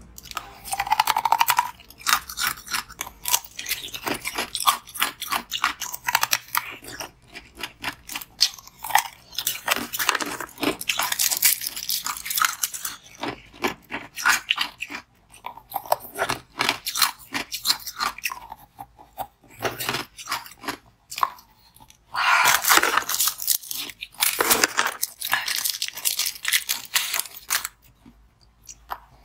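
Close-miked crunching and chewing of a frozen coloured ice ball, bitten off in irregular bursts of sharp crunches with short pauses between bites.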